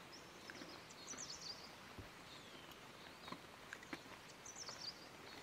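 Faint outdoor ambience with short clusters of high chirping bird calls, about a second in and again near the end, over a few scattered faint clicks.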